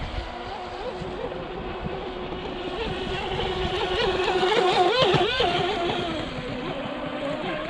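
Electric RC speedboat running at speed on open water, its motor whine wavering in pitch as the throttle changes. It grows loudest about five seconds in with quick rising revs, then falls back.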